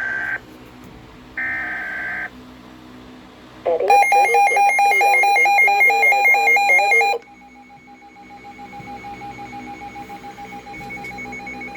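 Weatheradio Canada alert sequence on a weather radio receiver: two short buzzing digital data bursts (SAME header), then a loud pulsing electronic alarm for about three seconds, then a fainter steady alert tone continuing.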